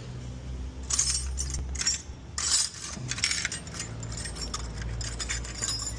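Small metal tools clinking and rattling as they are handled, in short clusters about a second in and again from about two and a half seconds, over a low steady hum.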